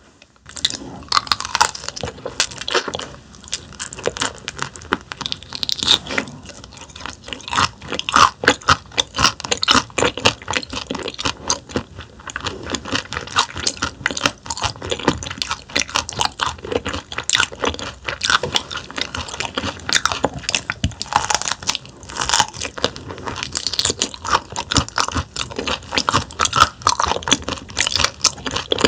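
Close-miked chewing of thinly sliced raw damselfish (jaridom) sashimi, with many irregular crisp crunches as the fish's hard bones break between the teeth.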